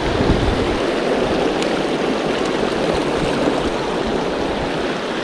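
Small mountain stream running over rocks in a shallow riffle: a steady, even rush of water.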